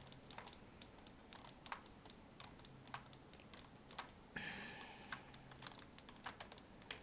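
Computer keyboard keys clicking in irregular, quick strokes as editing shortcuts are typed, with a soft hiss lasting about a second a little past the middle.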